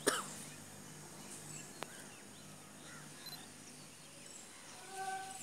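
Birds calling: a loud call falling in pitch at the start, scattered short chirps, and a short held call near the end, over a faint steady low hum.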